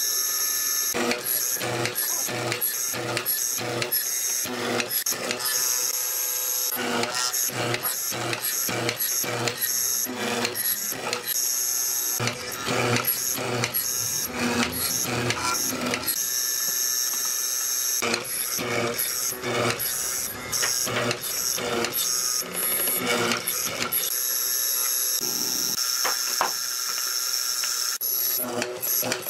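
Hollow chisel mortiser running, its square chisel and auger plunging into a wooden board to cut mortises: a steady motor whine with a rapid series of chopping cuts, about two to three a second.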